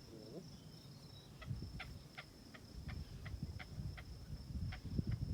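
Steady high insect drone of crickets, with low rustling steps through grass and a regular series of short ticks, about three a second.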